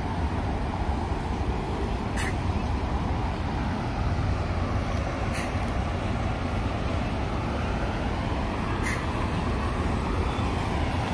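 Road traffic circling a busy cobblestone roundabout: a steady rumble of cars, a bus and motorcycles driving past, with three brief clicks spread through it.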